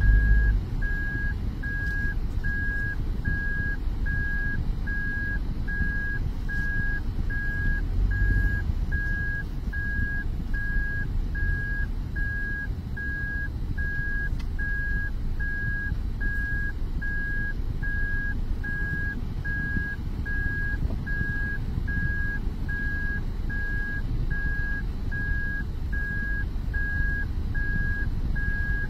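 A car's reverse-gear warning beeping: evenly spaced single-tone beeps as the car backs up, over the steady low rumble of its engine and tyres heard from inside the cabin.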